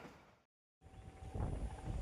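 A passing train fading away, then a brief dead silence where the clip cuts. After it comes a low rumble with wind-like noise and a faint steady tone.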